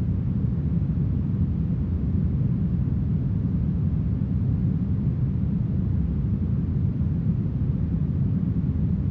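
Steady smoothed brown noise: a deep, even whoosh, heavy in the lows and soft in the highs, with no change.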